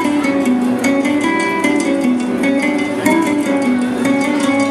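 Music led by plucked guitar notes with a steady pulse, the show's pyromusical soundtrack.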